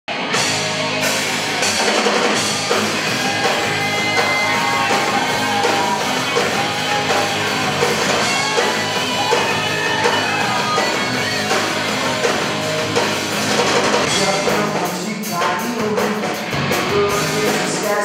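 Rock band playing live: electric guitars, bass guitar and drum kit, with a lead guitar line over the band. Near the end the playing turns choppy, with short stop-start hits.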